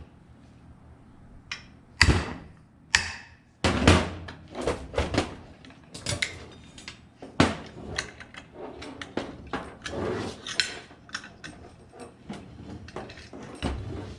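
Metal parts and tools clattering as a ceiling fan is taken apart: a run of irregular knocks, clinks and scrapes, with the loudest knocks about two and four seconds in.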